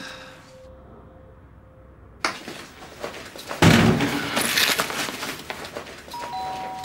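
Indoor knocks and clattering, the loudest a heavy bang about three and a half seconds in, after a short music cue fades out. A two-note chime, high then lower, begins near the end.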